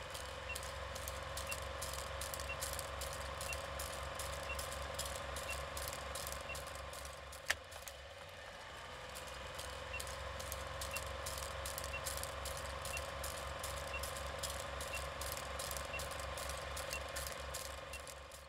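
Steady mechanical ticking and whirring: regular clicks at about three a second over a low pulsing hum, with one sharper click about seven and a half seconds in, fading near the end.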